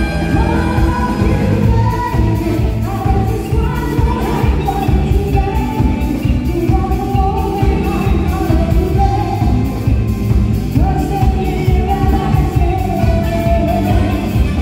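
A live band playing a song, with a singer's melody carried over bass and drums with a steady cymbal beat.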